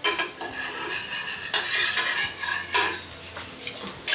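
Metal kitchen utensil scraping and clinking against steel cookware, with a series of knocks and a brief ringing tone in the middle.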